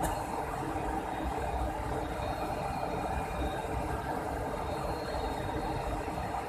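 Steady running noise of an Airbus A300-600 on the ground: an even rumble with faint constant whining tones, and a short click at the very start.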